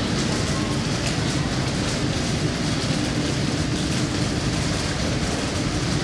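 Tokyo Metro 8000 series electric train rolling slowly into a station platform: a steady rumble of wheels on the rails with a steady hum.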